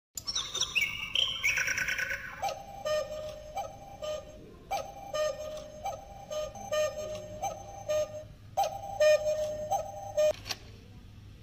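A cuckoo clock calling the hour: a long run of two-note falling "cuckoo" calls, about one a second, over the clock's faint ticking. It opens with a couple of seconds of high, falling chirps.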